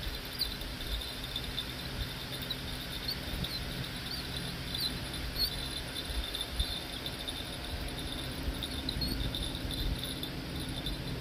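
Insects, crickets by the sound of it, chirping steadily with short high chirps scattered throughout, over a low steady rumble.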